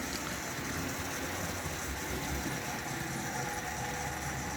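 Vintage Hornby OO-gauge Ivatt class 2 model locomotive running steadily on the layout: a continuous electric-motor whir and gear hum with wheels rolling on the rails, somewhat noisier than its green sister.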